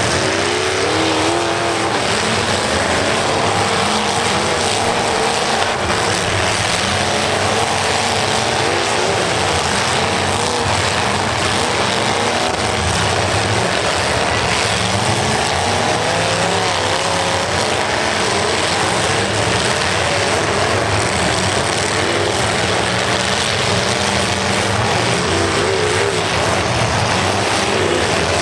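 Several demolition derby cars' engines running hard and revving, their pitch rising and falling as the cars accelerate and back off, over a dense, steady mechanical din.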